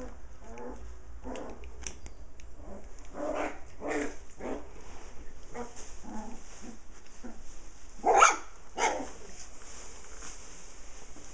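Puppies at play, giving short yips and whines throughout, with two loud barks about half a second apart around eight seconds in.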